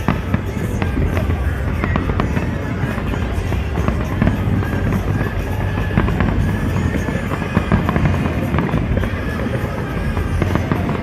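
Fireworks going off in a rapid, continuous string of bangs and crackles, with music playing underneath.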